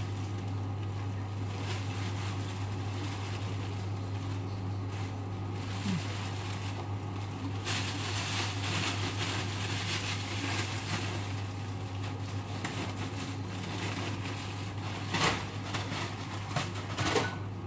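A clear plastic bag rustling and crinkling as dried noodle nests are pulled out of it, with a couple of sharper crackles near the end, over a steady low hum from a kitchen appliance.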